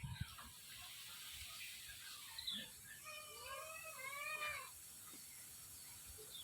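Animal calling: a run of short pitched cries, each rising then falling, about three seconds in and lasting under two seconds.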